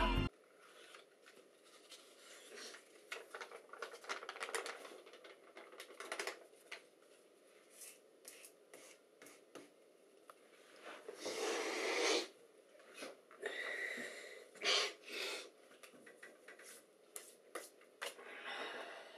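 Music cuts off right at the start, then a quiet room with small handling noises: irregular soft clicks and taps and a few short rustles, the longest about halfway through.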